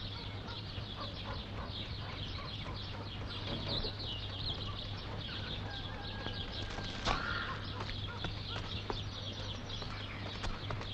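Small birds chirping, a dense run of short high chirps, over a steady low hum, with one sharp click about seven seconds in.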